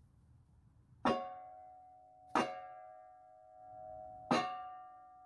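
Steel blower fan being tapped down onto the engine shaft through a wooden block: three sharp strikes, each leaving the fan ringing like a bell as the ring fades away. The fan is only partly seated on the shaft.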